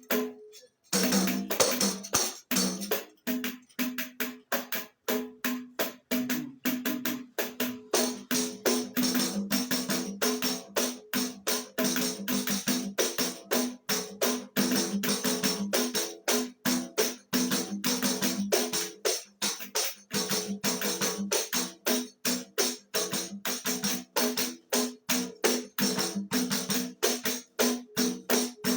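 Tamborim beaten with a stick in the samba partido alto pattern: a fast, steady run of sharp, ringing strikes that starts about a second in.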